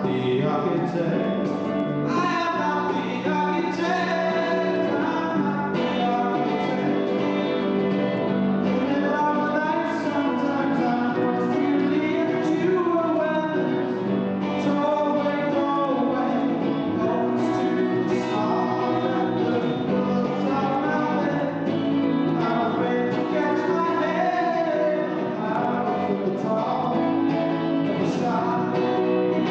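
A live song: voices singing over acoustic guitar accompaniment.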